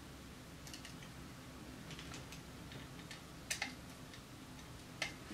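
Faint, scattered small clicks and ticks of a precision screwdriver turning small screws into a small metal part held in the hand. Two sharper clicks come about three and a half seconds in, and another near the end.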